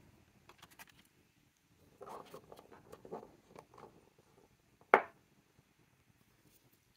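Small glass ink bottle being uncapped and handled on a desk: light clicks and rustling, then one sharp tap about five seconds in as something is set down.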